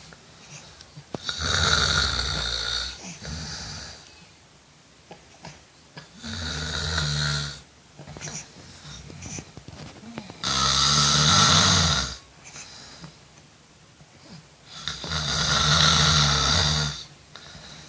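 A person snoring in a slow, regular rhythm: four loud snores, each lasting under two seconds, about four and a half seconds apart.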